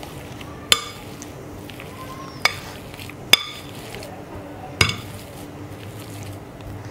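A wire potato masher pressing boiled potatoes in a glass bowl, striking the glass four times with sharp ringing clinks at uneven intervals.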